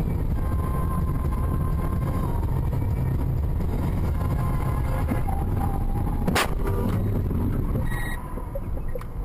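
Steady road and engine noise inside a car at highway speed, with one sharp bang of an impact about six seconds in.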